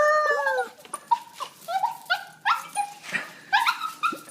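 Dog whining with excitement at seeing her owner: one long cry that rises and falls, then a run of short, upward-sweeping yelping whines, about two a second.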